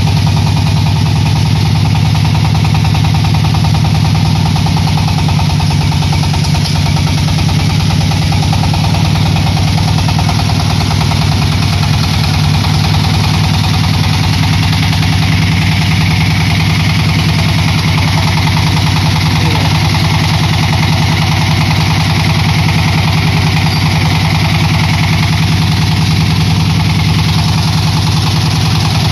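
Stationary diesel engine running steadily at constant speed, driving a clay brick extruder.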